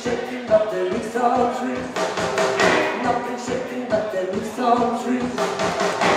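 Live rockabilly band playing: guitars over drums keeping a steady beat of about four strokes a second.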